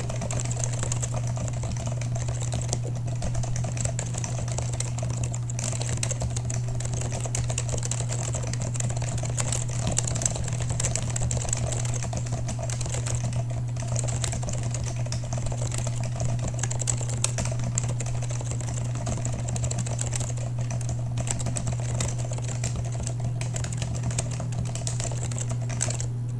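Typing on a keeb.io Iris Rev. 3 split keyboard with waxboiled Alps SKCM Ivory switches, AEKII keycaps and an FR4 sandwich case: a steady run of key clicks that sound very even, stopping just before the end. A steady low hum runs underneath.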